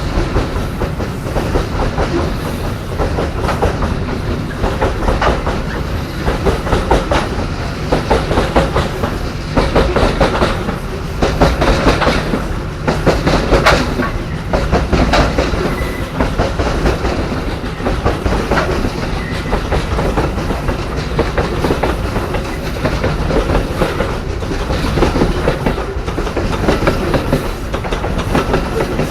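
Wagons of a long coal train rolling past at close range, wheels clacking over rail joints in a steady, continuous clatter.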